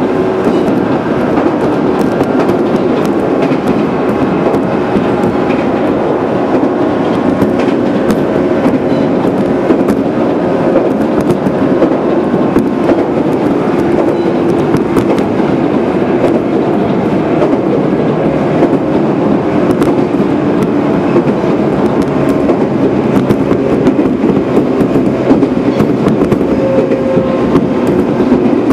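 Running noise inside a JR 415-series AC/DC electric multiple unit at speed: a steady rumble of wheels on rail, with the clickety-clack of rail joints passing under the car.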